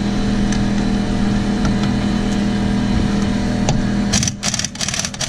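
Impact wrench hammering on a wheel lug nut, a rapid clatter that starts about four seconds in, over a steady low hum.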